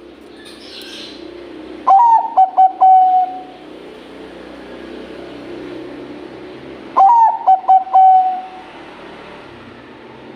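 Zebra dove (Bangkok-type perkutut) singing two phrases about five seconds apart. Each phrase opens with a sharp note, runs through a quick string of short coos and ends on a longer held coo. A steady low background hum lies underneath.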